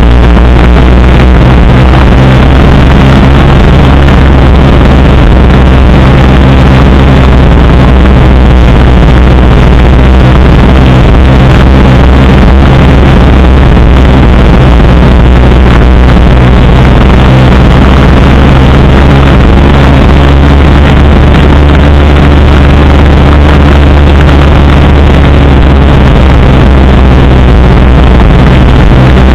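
Motor scooter engine running steadily at a constant cruising speed, loud and close, with a dense rushing noise over it.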